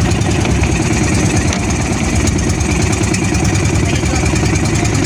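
Outrigger boat's engine running steadily and loudly, with a fast even chugging, as the boat heads out.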